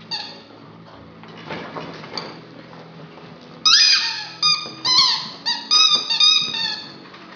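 Squeaky dog toy being chewed by a puppy: soft knocks and rustling at first, then from about halfway a rapid run of loud, short squeaks, each bending in pitch as the squeaker is squeezed and released.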